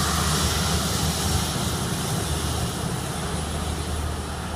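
Airliner engines running on the runway: a steady engine noise with a strong deep hum, slowly fading.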